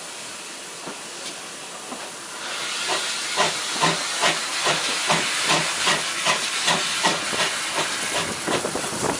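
Steam locomotive, GWR 1600-class 0-6-0 pannier tank, hissing steam, then from about two and a half seconds in working hard with steady exhaust beats at about two and a half a second.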